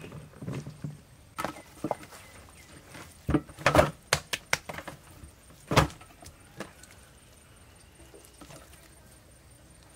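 Irregular sharp clicks and knocks, with a dense cluster of them in the middle and a few scattered ones later.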